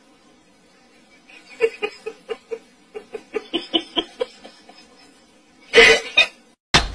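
A person giggling in short, quick pulses for a couple of seconds, then a louder brief burst of sound about six seconds in.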